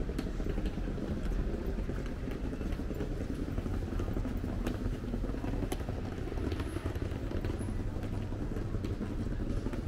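City street ambience: a steady low rumble with scattered small clicks and knocks.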